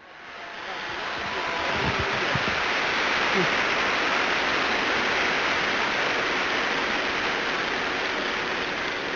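A large crowd applauding and cheering, a dense steady roar that fades in over the first couple of seconds.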